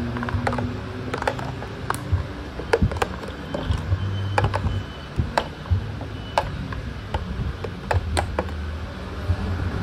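Irregular sharp clicks and knocks of hard plastic parts being handled and moved on a stripped-down scooter, over a steady low hum.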